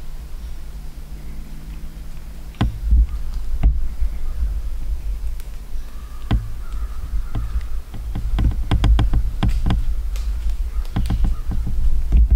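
Handling noise from a camera held by a hunter in a tree stand as he turns around with his compound bow: a low rumble with many small knocks and clicks, which grow thicker about two thirds of the way in.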